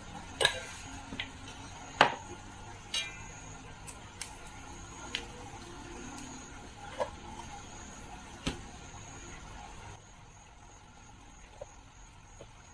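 Scattered light clicks and clinks, a second or two apart, from small metal tins of two-part glue and a mixing stick being handled and stirred.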